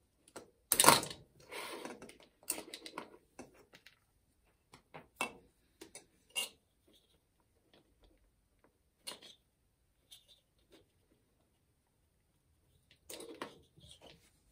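Small plastic wire connectors being worked loose and unplugged from a cordless drill's controller: a run of small clicks and rustles, loudest about a second in, with another cluster near the end.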